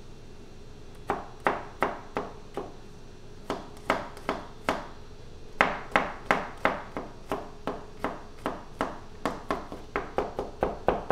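Chef's knife mincing garlic on a cutting board: sharp knocks of the blade on the board, a few at first, then quicker, about three a second, from about halfway on.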